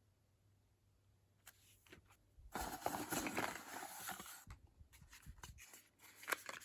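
Rustling and small clicks of beauty-product packaging being handled, with a stretch of louder rustling for about two seconds in the middle.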